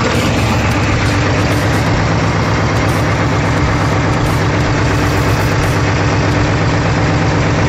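Escort 355 tractor's diesel engine running steadily at low revs with an even, fast pulsing beat while it drives the hydraulics to tip a loaded trolley.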